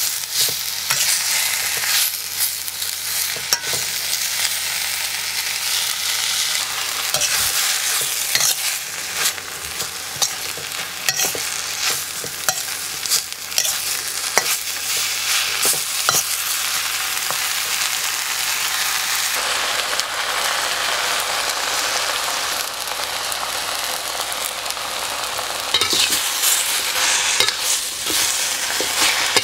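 Water spinach being stir-fried in a metal wok: a steady sizzle from the hot oil, with frequent scrapes and clinks as the spatula tosses the greens against the pan, busier near the end.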